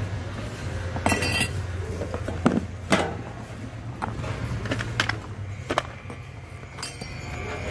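Hard goods clinking and knocking together in a store bin: a string of separate knocks and clinks, the one about a second in ringing briefly, over a steady low hum.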